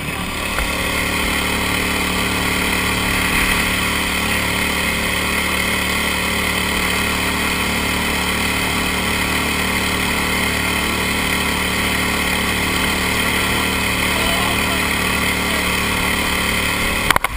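A duck boat's outboard motor runs steadily at speed, giving an even engine drone. A few sharp knocks come right at the end.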